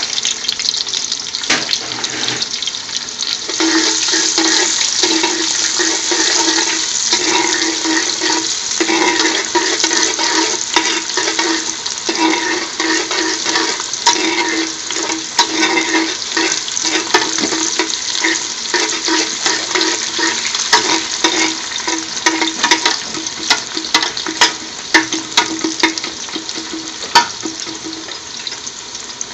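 Sliced garlic sizzling in hot vegetable oil in a large aluminium pot, growing louder a few seconds in, with frequent sharp clicks and scrapes as it is stirred against the pot. A steady low hum runs under most of it.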